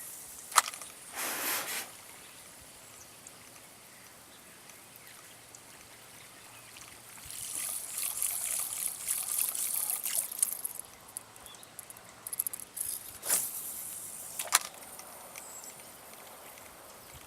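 Light water splashing and trickling that swells for a few seconds in the middle, with several sharp clicks and knocks scattered through it.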